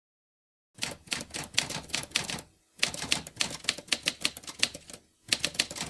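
Typewriter keys striking in quick runs of clacks as letters are typed out. The strikes start just under a second in and break off briefly twice, about two and a half seconds in and just after five seconds.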